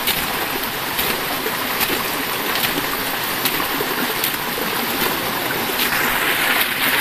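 Small waterfall and forest stream running: a steady rush of water over rock, with faint light ticks about once a second.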